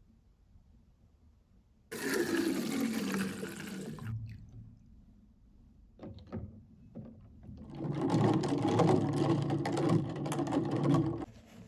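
Water running in two spells, first for about two seconds, then for about three seconds near the end, each starting and stopping abruptly, with a few small knocks between them.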